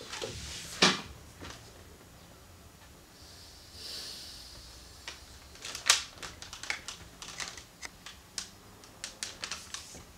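Typing on a keyboard: irregular sharp key clicks, thick in the second half, with one louder click about a second in.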